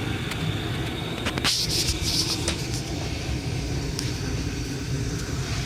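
Gas furnace running after a repair of its control board, burners lit and blower on, giving a steady low rumble. A brief hiss with a few clicks comes about a second and a half in.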